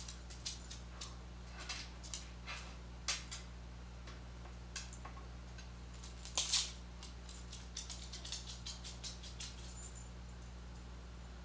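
A small dog's claws clicking and pattering on a hard floor as it scampers about, in short irregular runs of light taps with a louder flurry a little past halfway, over a low steady hum.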